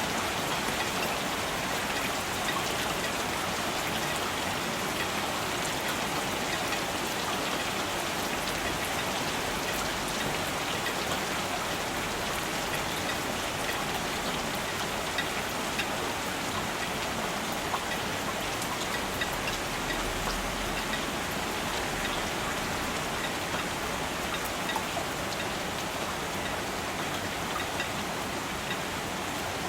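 Steady rain falling, an even hiss of rainfall with many individual drops ticking on surfaces.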